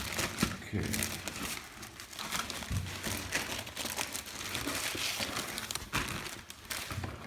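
Packaging being crinkled and rustled by hand as a newly unboxed hole punch is unwrapped: a dense, irregular crackling made of many small crinkles.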